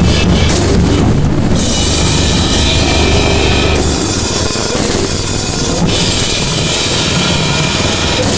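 Harsh noise music: a dense wall of distorted noise over a low rumble, its upper hiss cutting in and out abruptly every second or so. The deep rumble drops away about four seconds in.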